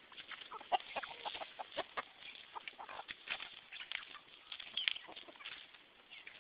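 A flock of chickens clucking as they feed, with many short calls overlapping at irregular intervals.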